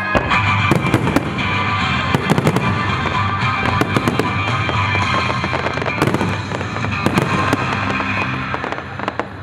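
Aerial firework shells bursting in a dense barrage, with many sharp bangs and crackles in quick succession, over the display's accompanying music.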